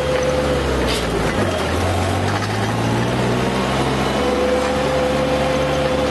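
Diesel engine of a Yanmar BV25 excavator running under working load, its note shifting about a second and a half in, with a thin hydraulic whine at the start and again from about four seconds in.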